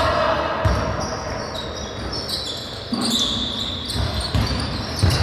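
A basketball bouncing on a sports hall floor: a few irregular thuds with echoing players' voices.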